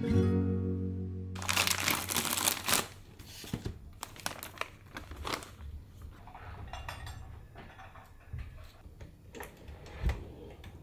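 Song ending about a second in, then a thin plastic zip-lock bag crinkling and rustling as it is handled, loudest in a burst about two seconds in and softer after. A short low thump near the end as a drawer is pulled open.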